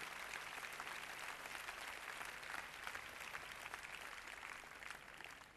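Large arena audience applauding, faint, the clapping dying away near the end.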